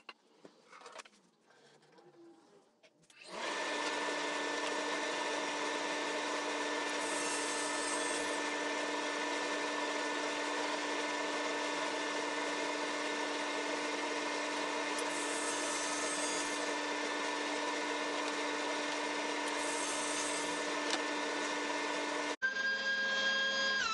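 SawStop 1.75 hp cabinet table saw running steadily at speed. It comes in about three seconds in after a few faint knocks and goes on unchanged until near the end.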